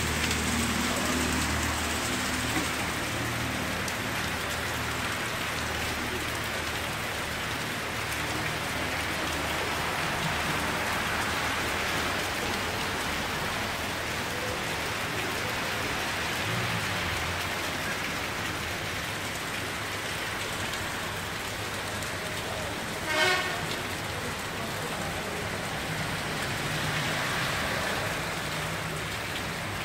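Heavy rain pouring down in a steady hiss, with a low rumble of traffic underneath. A car horn toots once, briefly, about two thirds of the way through.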